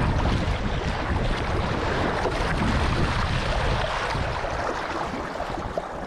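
Wind buffeting the microphone over water rushing and splashing along the hull of a kayak under sail. The noise is steady throughout.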